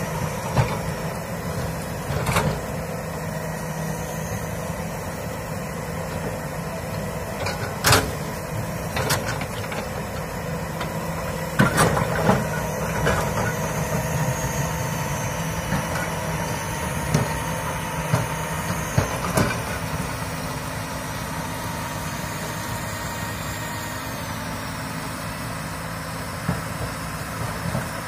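Komatsu PC200 hydraulic excavator's diesel engine running steadily, with a scattering of sharp knocks and clanks as the machine works the ground.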